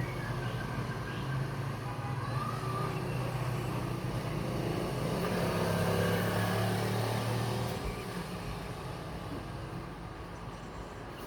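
A motor vehicle's engine running, its low hum growing louder towards the middle and then fading away.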